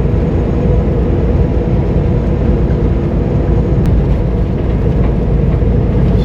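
Peterbilt 579 semi truck driving at highway speed: a steady low engine drone mixed with road and tyre noise.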